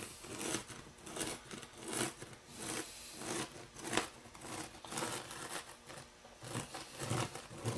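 Fingertip dragged through loose crushed-granite model railroad ballast over plastic track ties: a faint gritty scraping in short repeated strokes, with one sharper click about four seconds in.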